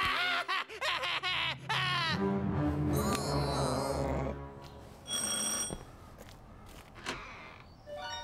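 Cartoon soundtrack: a child's mocking laughter at the start, then background music, then one short, bright electronic doorbell ring about five seconds in.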